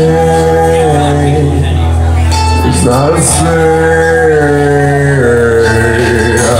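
Karaoke music: a backing track with a steady bass under long held melody notes that slide from one pitch to the next.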